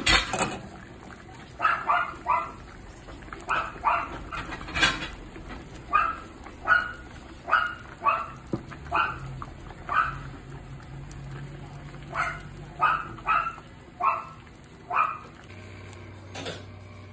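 A dog barking repeatedly, short barks often in runs of two or three, stopping a couple of seconds before the end. A sharp knock right at the start and another about five seconds in.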